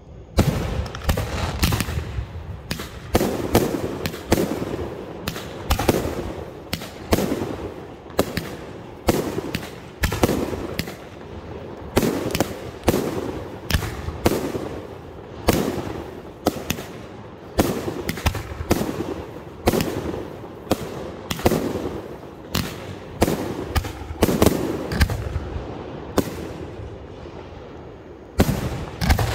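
Aerial firework shells bursting overhead in a steady barrage, roughly one or two bangs a second. There is a short lull near the end before a last bang.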